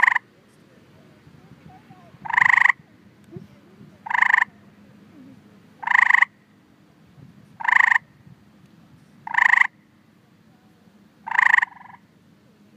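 Tree frog giving its mating advertisement call: a short, buzzy chirp repeated about every two seconds, each call lasting about a third of a second.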